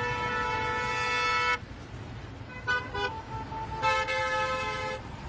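Car horns honking: a long steady blast that cuts off about one and a half seconds in, a couple of short toots about three seconds in, then another blast lasting about a second.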